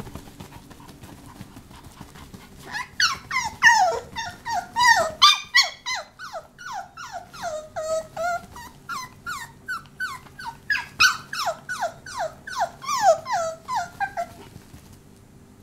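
Papillon puppy yapping in a rapid string of short, high-pitched yips, each falling in pitch, about two or three a second, starting a couple of seconds in and stopping shortly before the end.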